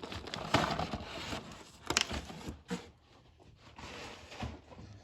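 Rustling and handling of stored items, with a few sharp clicks and knocks.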